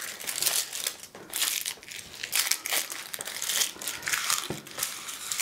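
Dry, papery onion skin crackling and rustling as it is peeled off a halved onion by hand, with a light knock on the wooden cutting board about four and a half seconds in.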